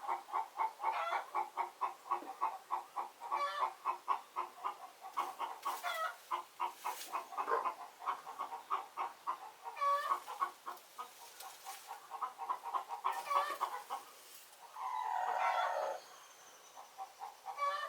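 Several domestic chickens clucking in quick repeated notes, with one longer drawn-out call about fifteen seconds in.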